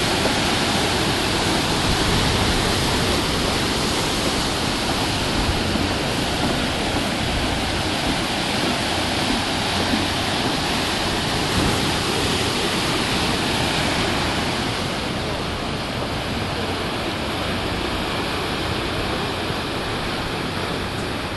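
Sea waves breaking and washing against the shore in a continuous rushing surf, easing slightly and sounding a little duller in the last several seconds.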